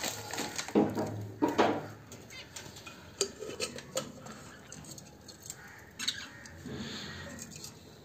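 Irregular clinks, knocks and scrapes of a wire budgie cage and a clay-pot nest being handled and opened, with the two loudest knocks about a second in.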